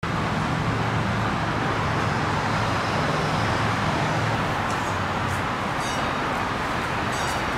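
Steady outdoor traffic noise with a low diesel-engine hum underneath that eases a little about halfway through, and a few faint high chirps in the second half.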